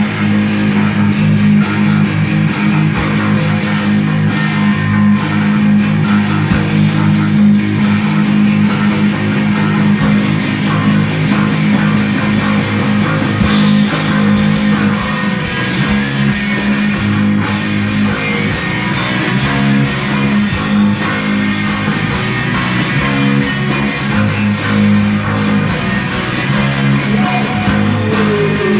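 Live psychedelic hard rock band playing an instrumental passage: electric guitar over bass guitar and drum kit.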